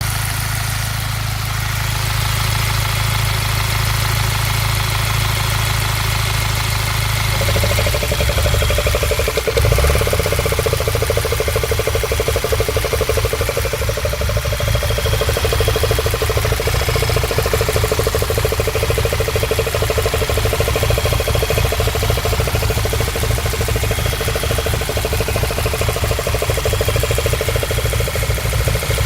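Internal combustion engine running with a rapid, even knock, the engine fault being shown. About eight seconds in the sound shifts and grows a little louder, and the knocking runs on steadily.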